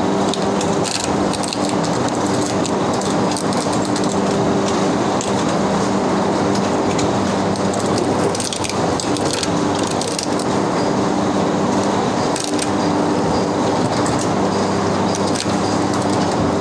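Electric coconut-shell prying machine running with a steady hum while coconut halves are pressed against its spinning head, scraping as the shell is pried away from the meat, with scattered clicks.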